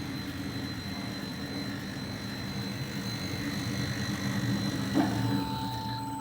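Sawmill running steadily while milling a turkey oak log: a constant machine hum with a high steady tone, and a single knock about five seconds in.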